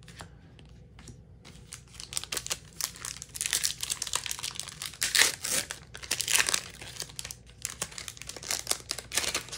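Foil wrapper of a Magic: The Gathering booster pack crinkling and tearing as it is opened by hand, a dense crackle that builds from about a second in and runs on until just before the end.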